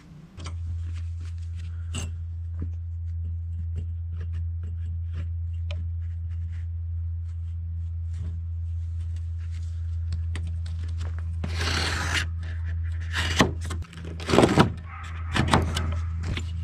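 Hand snips cutting through Ram Board cardboard: small clicks of the blades, then several louder crunching cuts in the second half. Throughout, a steady low hum.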